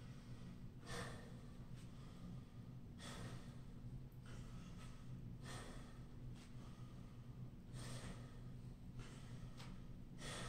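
A man breathing hard and winded between high-intensity intervals, with five long, noisy exhales about two seconds apart. A faint steady low hum runs underneath.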